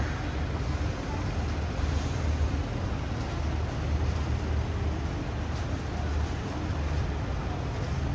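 Steady road traffic noise from passing cars, a low rumble that swells and eases.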